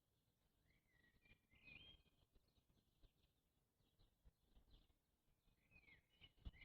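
Faint bird song in otherwise near silence: a short chirping phrase about a second in and another near the end.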